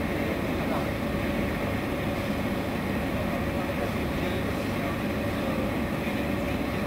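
Jet aerator running underwater, its aerated jet churning up the surface in a steady rush of turbulent water. A faint steady tone runs underneath.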